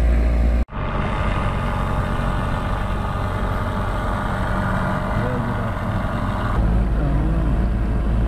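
Steady drone of a small boat's outboard motor under way, mixed with wind buffeting the microphone and water rushing past the hull. The sound cuts out abruptly for an instant about a second in.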